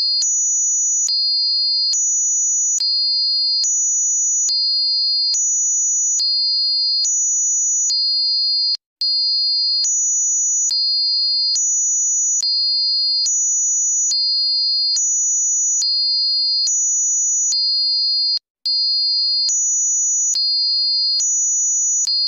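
High-pitched electronic two-tone alert signal, switching back and forth between two pitches a little under once a second, with a brief break about every ten seconds.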